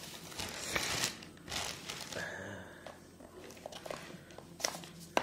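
Paper and plastic packaging rustling and crinkling as it is handled, with a few light knocks and clicks from the box.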